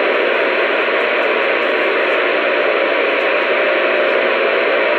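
Loud, steady static hiss with a faint hum running through it.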